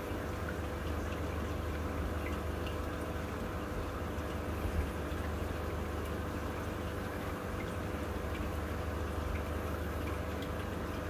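Steady trickling and bubbling water of a running aquarium over a low steady hum, with faint scattered small drips and pops.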